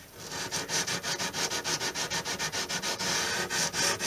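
220-grit sandpaper rubbed by hand in quick short back-and-forth strokes over the edge of a mahogany guitar body, lightly sanding a new wood patch, several strokes a second.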